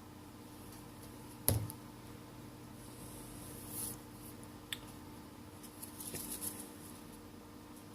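Small hand-work noises at a bench during a phone repair: one sharp tap about a second and a half in, then a faint short hiss, a tiny tick and light scratching and rustling.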